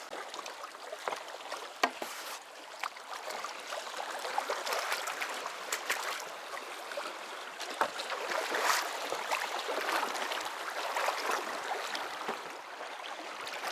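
Water sloshing and splashing, with many small irregular splashes and knocks.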